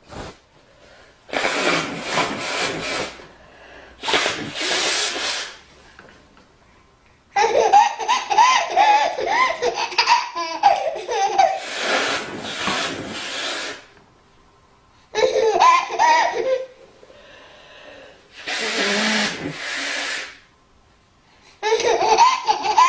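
A mother sneezing loudly several times, each sneeze a short noisy burst, and a baby laughing in bursts between the sneezes.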